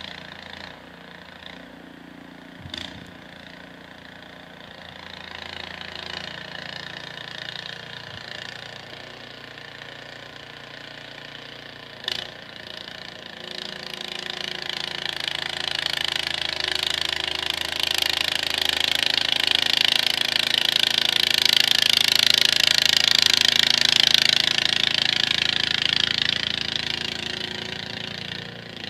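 Small engine running steadily, growing louder with a rising hiss through the middle and easing off near the end, with two sharp clicks early on and about twelve seconds in.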